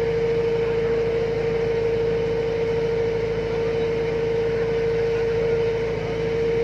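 Boat engine running steadily at an even pitch, a constant drone with no change in speed.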